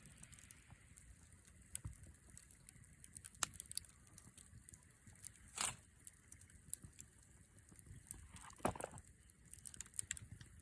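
Wood campfire crackling, with many small sharp pops scattered irregularly and two louder, longer pops about halfway through and near the end.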